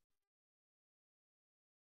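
Silence: the audio is digitally near-silent, as when a video-call line is muted or gated between speakers.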